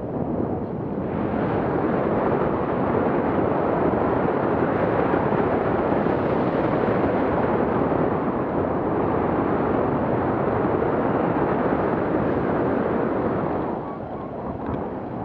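Wind rushing and buffeting over an action camera's microphone in tandem paraglider flight, a steady rumbling hiss from the glider's airspeed that eases near the end as it slows for landing.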